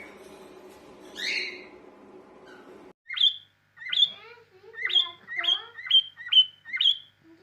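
Cockatiels chirping: one call about a second in over a steady low hum, then, after the hum cuts off abruptly, about eight short, sharp chirps in quick succession.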